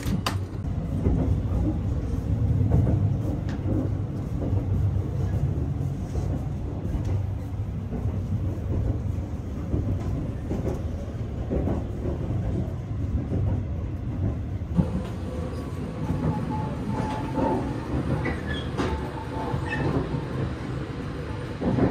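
Interior running noise of the Sunrise Izumo sleeper express: a steady low rumble of the train moving along the rails. About 15 seconds in, the sound turns brighter and hissier, with a few faint ringing tones and ticks.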